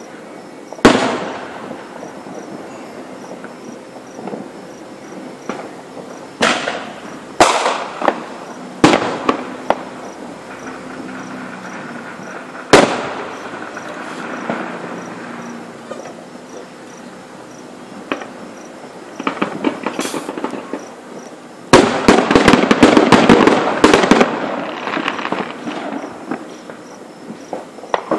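Fireworks show: single aerial shells burst with sharp bangs every few seconds, each followed by a short rumble. About two-thirds of the way in, a dense barrage of rapid crackling reports goes off for about three seconds.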